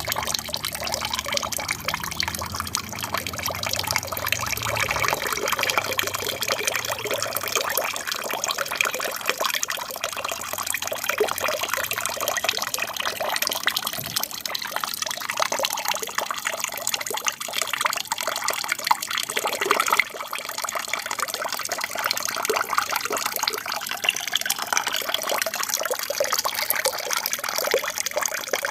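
Water steadily trickling and splashing down a small aquarium waterfall.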